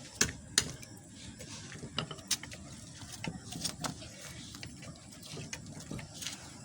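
A metal tool scraping and clinking against a crucible as dross is skimmed off molten metal: scattered, irregular sharp clicks, a few a second.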